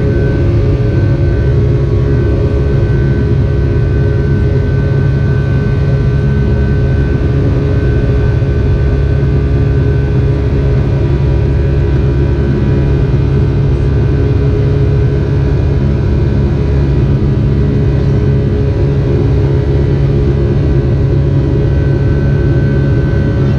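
Boeing 757-200 cabin noise: the jet engines and airflow make a steady, even rumble with a few constant whining tones on top, heard from inside the cabin.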